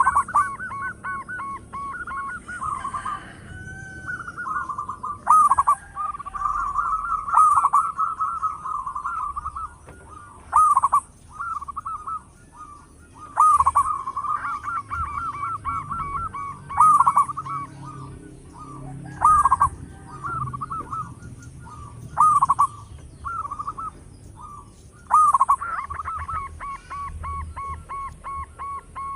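Zebra dove (perkutut) cooing: a loud, rapid run of staccato notes repeated every two to three seconds.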